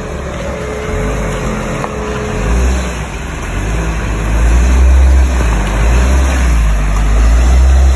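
Maruti Suzuki Jimny's 1.5-litre four-cylinder petrol engine revving under load as the SUV drives through deep muddy ruts, getting louder from about halfway through as it pulls closer.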